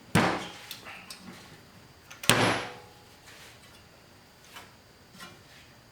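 Two loud knocks as a DT Swiss hub end cap is forced off the axle with a 4mm Allen wrench and quick release pushed through the hub. The second knock, a little over two seconds in, is the louder and has a short ringing tail; a few faint small clicks follow.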